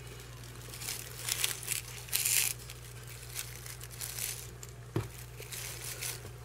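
Shredded crinkle paper rustling and crinkling in hands in several short bursts, the loudest about two seconds in, with a single sharp tap about five seconds in.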